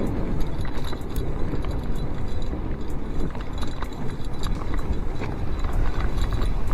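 Giant Yukon 1 fat bike being ridden through fresh snow: a steady low rumble from the fat tyres rolling and crunching, with scattered sharp clicks and rattles from the bike throughout.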